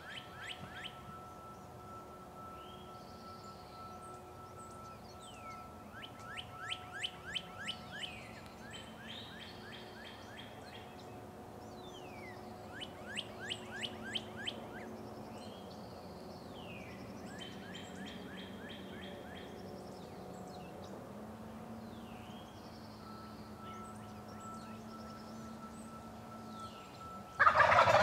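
Wild songbirds singing: repeated fast chirping trills and short falling whistles. Near the end a loud gobble from a wild turkey gobbler breaks in.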